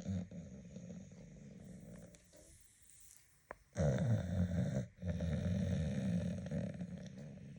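A sleeping dog snoring in long rasping breaths. A drawn-out snore fades in the first two seconds, a short lull follows with a single click, then two loud snores come back to back in the second half.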